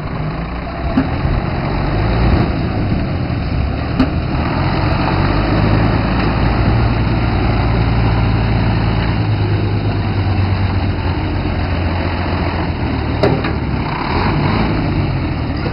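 Volvo FH12 340 tractor unit's 12-litre straight-six diesel pulling a loaded low-loader trailer at low speed, a steady engine drone that grows louder as the truck approaches and passes close by.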